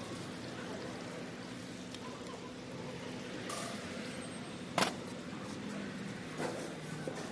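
Vehicle engine idling steadily, with a couple of sharp clicks about three and a half and five seconds in.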